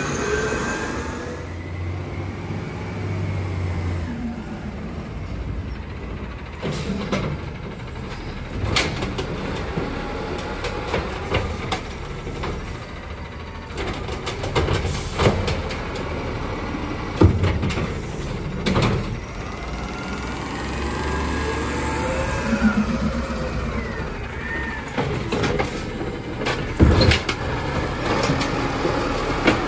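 Autocar ACX garbage truck with an Amrep automated side-loader arm at work: the engine runs and revs while the hydraulic arm whines up and down, with several sharp metallic clanks and bangs as carts are gripped, emptied into the hopper and set back down. The loudest bangs come about halfway through and near the end.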